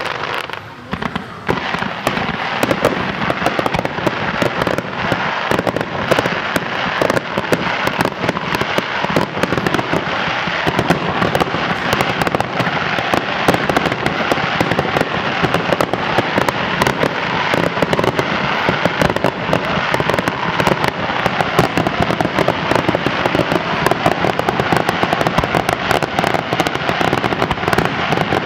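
Fireworks display: a few separate bangs, then from about two seconds in a dense, continuous crackle of many rapid pops from sparkling shells bursting in the sky.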